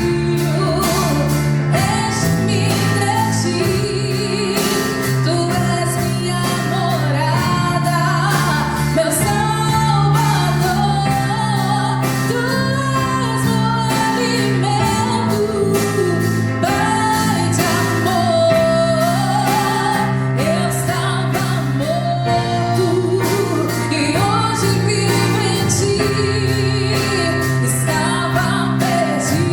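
Live band playing an upbeat song with a woman singing lead over piano, acoustic guitar, electric bass and drums.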